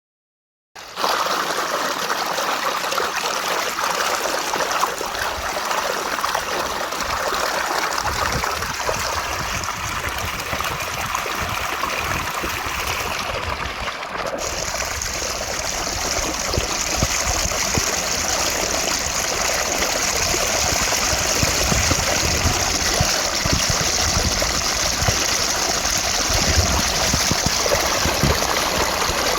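Water cascading over small falls in a stream, a steady rushing hiss that starts abruptly about a second in. About halfway through the sound shifts, with a brighter hiss and more low rumble.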